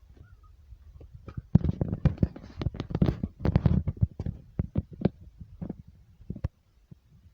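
A dense run of knocks and rattles, loudest in the first half, thinning to scattered clicks near the end.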